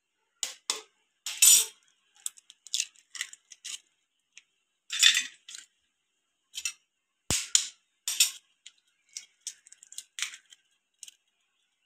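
Raw eggs being cracked into a stainless-steel mixing bowl: a scattered series of short taps, clicks and shell crackles with light metallic clinks, one sharp click about seven seconds in.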